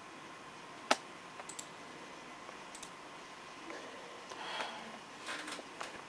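Computer mouse clicking: one sharp click about a second in, then a few fainter clicks and some soft rustling.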